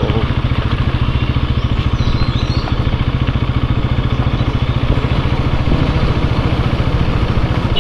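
Motorcycle engine running at a steady, low speed, its exhaust pulsing evenly and rapidly.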